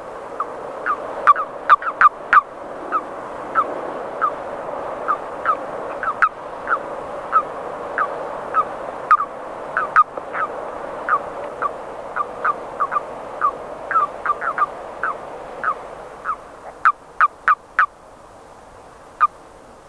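A chorus of edible frogs (the green frog proper): a steady background hum of calling with many short, sharp, downward-sliding calls over it, two or three a second, thinning out near the end.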